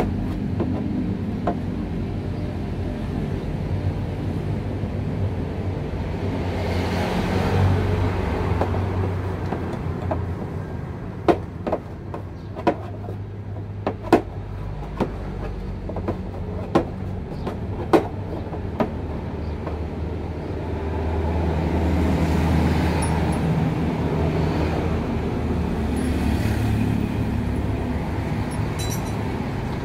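Sharp metallic clicks of a long hand tool working on a Yamaha Mio Sporty scooter's cylinder head, about eight of them spread over several seconds midway. Underneath, a steady low vehicle rumble swells twice.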